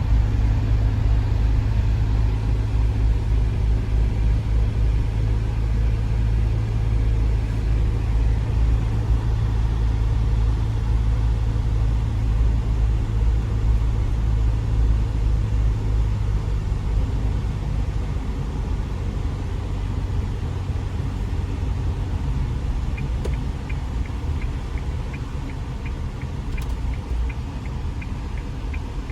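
Steady low rumble of an Isuzu MU-X running with its air-conditioning fan blowing hard, heard inside the cabin while the engine is not yet warm. The rumble eases somewhat past the middle, and near the end a regular quick ticking starts, about two to three ticks a second.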